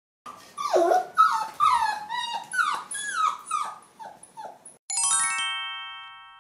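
Golden retriever puppy yipping and whimpering: about ten short, high calls that slide down in pitch, one after another. Near the end a bright chime chord strikes once and rings out, fading slowly.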